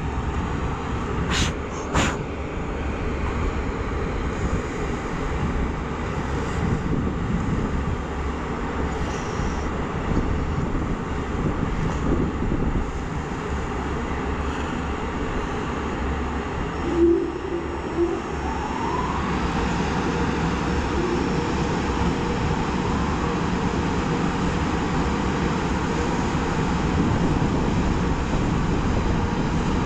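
JR Freight EH500 electric locomotive standing with its equipment running: a steady drone, mostly its cooling blowers. Two sharp clicks come about two seconds in, and a faint rising whine comes about two-thirds of the way through.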